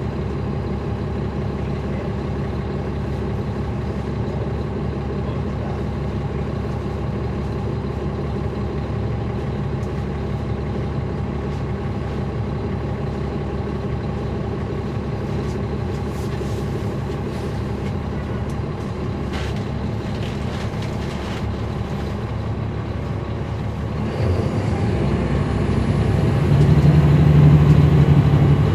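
Diesel engine of a 2009 NABI 416.15 transit bus, a Caterpillar C13 ACERT driving a ZF Ecomat automatic, running steadily with a few light clicks and rattles. About 24 seconds in it grows louder and stays louder.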